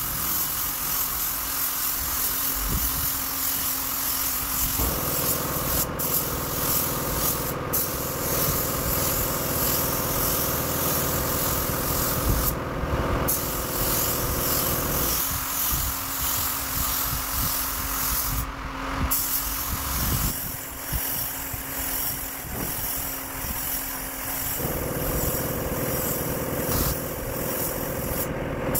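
Compressed-air paint spray gun hissing steadily as it sprays paint onto a bus side panel. The hiss breaks off briefly a few times as the trigger is let go. Under it a steady machine hum comes in about five seconds in, stops around fifteen seconds, and returns near the end.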